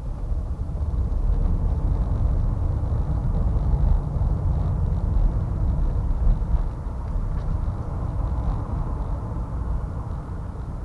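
Car driving through city traffic: a steady low rumble of engine and road noise that swells for several seconds in the middle and then eases back.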